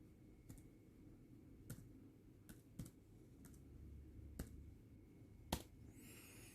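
Near silence broken by faint, single clicks from handling a MacBook Air, about seven at irregular spacing, the loudest near the end.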